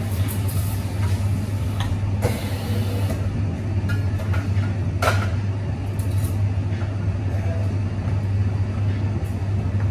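Cafe espresso-bar working sounds: a steady low machine hum under scattered sharp clinks and knocks of cups and barista tools, the clearest about two and five seconds in.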